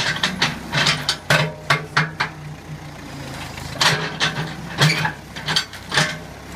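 Case 580 Construction King backhoe engine running steadily while the bucket works at a tree stump, with a series of irregular sharp knocks and cracks over the engine.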